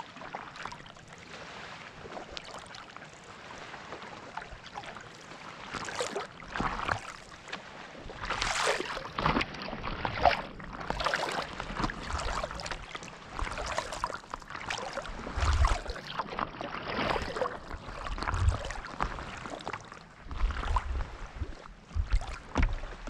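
Paddle strokes in lake water from a stand-up paddleboard: the blade dipping and pulling through the water with splashes and drips, and water lapping against the board, roughly one stroke a second in the second half.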